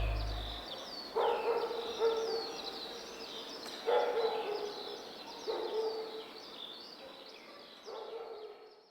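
Animal and bird sounds: continual short, high chirps with a lower pitched call repeating every second or two, fading out.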